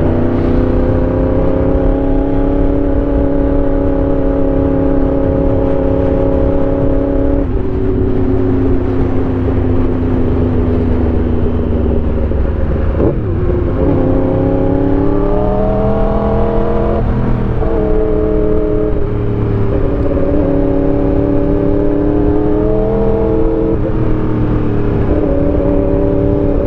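Motorcycle engine running under way at a steady pitch, with a low rushing noise underneath. About seven seconds in the pitch steps to a new level. Near the middle it dips, then rises for a few seconds as the bike accelerates, and drops sharply again as it shifts gear.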